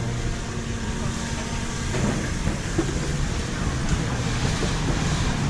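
Street ambience with a vehicle engine running steadily, a low hum under a general wash of traffic noise.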